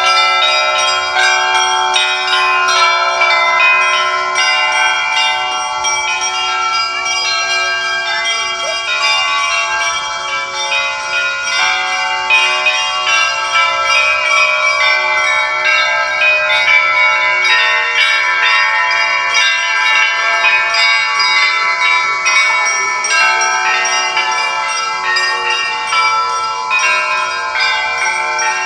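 Church bells ringing: several bells of different pitches struck in quick succession. Their tones overlap and ring on without a pause.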